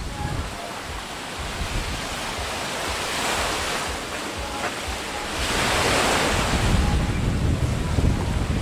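Small sea waves breaking and washing up a sandy, rocky beach, swelling twice, about three and six seconds in, with wind buffeting the microphone, heavier in the second half.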